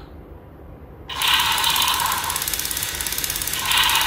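The MPZ-02 Saber Tiger Zoids model's battery motor and plastic gearbox start about a second in and run with a fast, even clicking rattle. The sound turns harsher twice.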